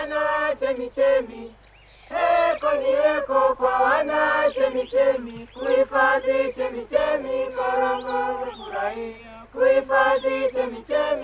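A choir of several voices singing without instruments, in sung phrases with long held notes, with a short break about two seconds in.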